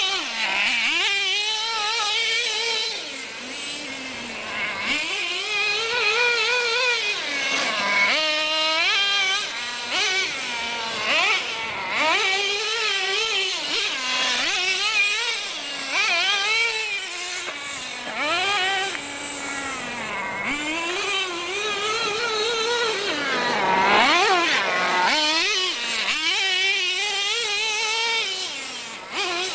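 Tamiya TNX 5.2 radio-controlled monster truck's small nitro engine revving up and down as it is driven, a high buzzing tone that rises and falls every second or two.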